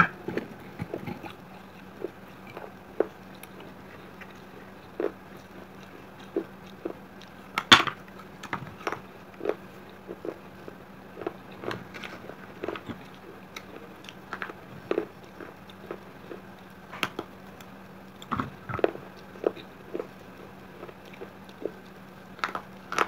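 Pieces of baked terracotta clay pot being bitten and chewed, with irregular short crunches about every half second and one louder crunch about a third of the way in. A faint steady hum runs underneath.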